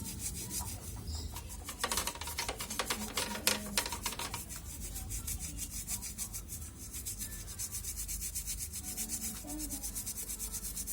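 Rapid back-and-forth scrubbing strokes, louder between about two and four seconds in.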